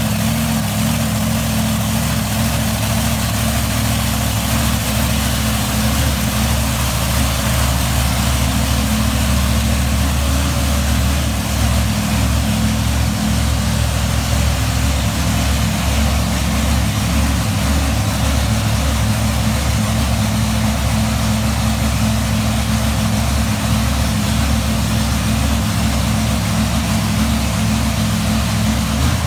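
Heavy engine idling steadily: a constant low rumble with no revving.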